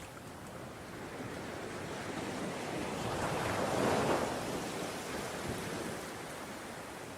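Ocean waves breaking and washing on the shore, one wave building to a peak about four seconds in and then easing back, with some wind on the microphone.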